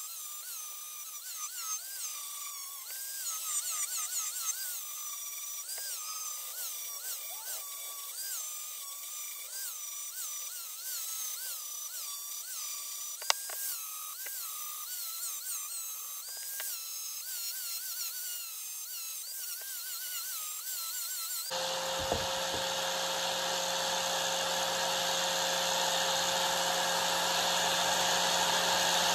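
Electric grinder grinding the edge bevel on a high-carbon steel knife blade: a high whine that wavers up and down in pitch two or three times a second as the blade is worked. About two-thirds of the way in it changes to a steadier, even motor hum.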